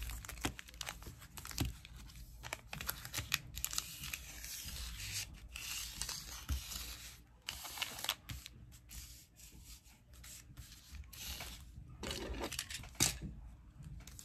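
Foil trading-card pack wrappers crinkling and rustling as the packs are shuffled in the hand and laid down one by one on a table, with scattered light taps.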